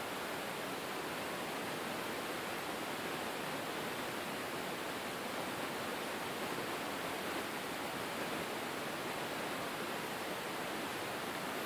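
Steady rush of water splashing into a small concrete pond from a pump's outlet pipe.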